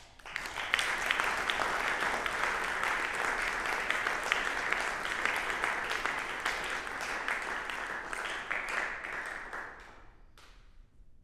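Audience applauding, starting just after the beginning and dying away about ten seconds in.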